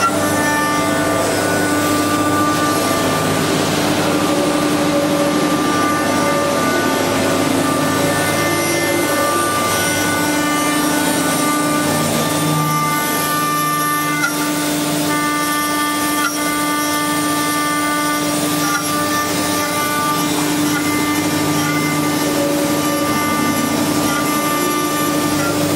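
Eight-head CNC wood carving lathe running, its high-speed router spindles giving a steady whine with several held tones over the noise of the bits carving wooden furniture legs.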